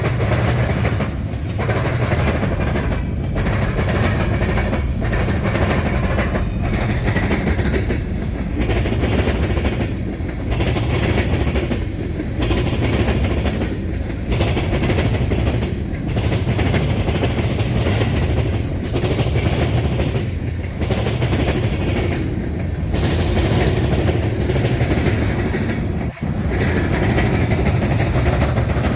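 Freight cars rolling past with their wheels clattering over a railroad diamond crossing, the clatter rising and falling about every two seconds as each car goes by.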